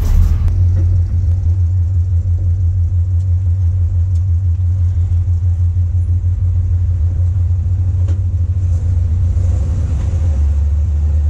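Small-block 350 V8 in a 1968 Chevrolet C20 pickup, running through long-tube headers and cherry bomb glasspack mufflers, heard from inside the cab as the truck drives. It gives a deep, steady exhaust note that sounds a bit like a boat, and the note drops a little near the end.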